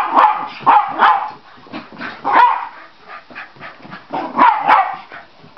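Small terrier barking and yipping in short bursts as it chases a laser pointer dot in circles, with four clusters of loud barks a second or two apart.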